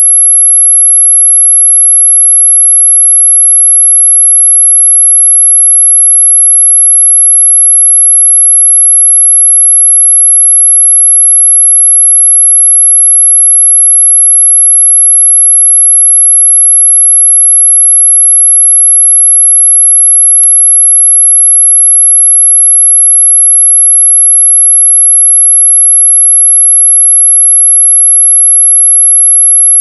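A loud, steady, very high-pitched electronic sine tone, played as a mosquito-repelling 'ultrasonic' sound, held unbroken at one pitch.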